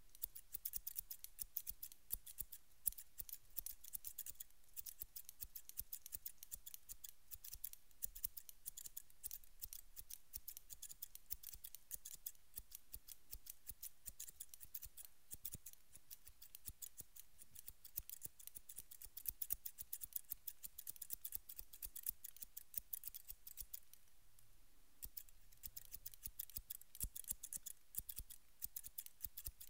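Barber's hair-cutting scissors snipping very fast right at a microphone: a dense run of crisp metallic snips, thinning out for a few seconds near the end.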